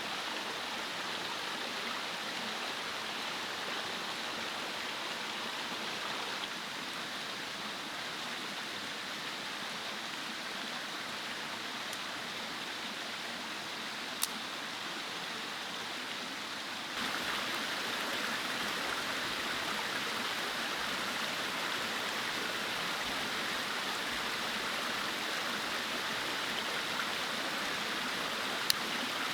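Steady rushing of a flowing mountain stream, a little quieter from about six seconds in and fuller again from about seventeen seconds in. Two single sharp clicks, one about fourteen seconds in and one at the very end.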